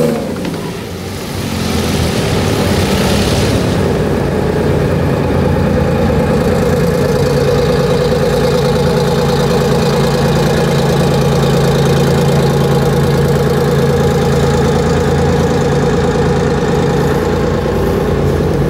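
Engine of a tracked armoured personnel carrier idling steadily. The level dips briefly about a second in.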